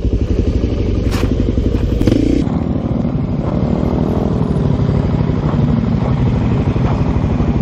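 Suzuki DR-Z400SM's single-cylinder four-stroke engine running while riding on a dirt trail, with a couple of sharp knocks. About two and a half seconds in the sound changes abruptly to the engine running steadily at idle.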